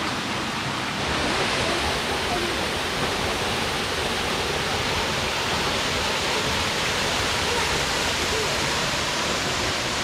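Small waterfall spilling over a rock ledge and splashing into a shallow pool: a steady rush of falling water, a little louder from about a second in.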